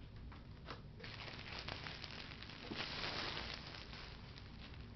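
A white plastic carrier bag rustling and crinkling as it is handled, loudest about three seconds in, after a few light clicks in the first second.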